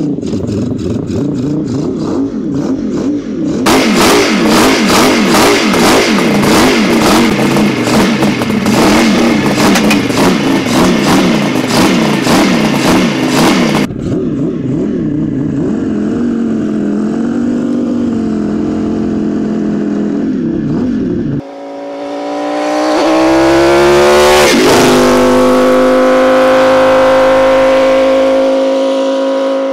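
Five-cylinder 1250 cc two-stroke built from a Kawasaki H2 750, running and revved hard with a rapid crackling exhaust, then settling to a softer, wavering run. Near the end it rises in pitch under acceleration, dips sharply once, then holds a high steady note.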